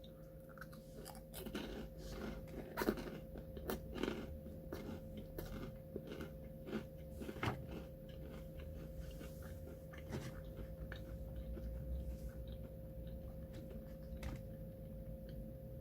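A person chewing and crunching a rice puff bar: irregular crisp crunches, most frequent in the first half, thinning out to quieter chewing later on. A faint steady hum runs underneath.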